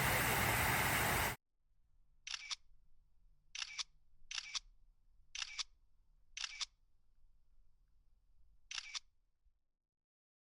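A steady rushing noise cuts off abruptly just over a second in. Then come six short camera shutter clicks, unevenly spaced over the next seven seconds.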